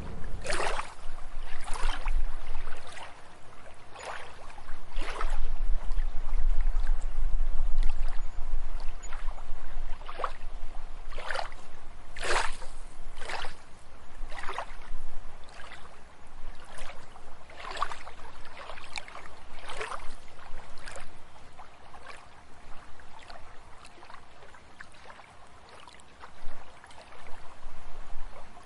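Water splashing and lapping in short, irregular splashes about every second or two, over a faint steady hiss. A low rumble comes in for a few seconds about five seconds in.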